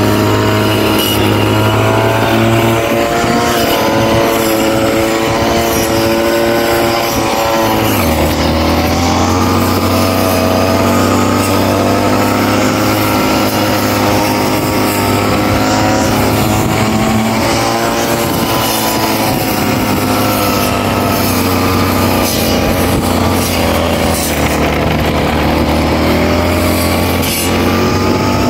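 Engine-powered brush cutter running under load. Its engine note rises and falls as it cuts grass, with the revs dropping about eight seconds in and then climbing back.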